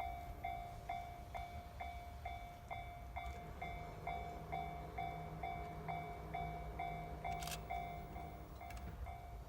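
Japanese railway level-crossing warning bell ringing in an even electronic ding, about two strikes a second. From about three and a half seconds in, the low steady hum of an approaching train joins it and fades near the end.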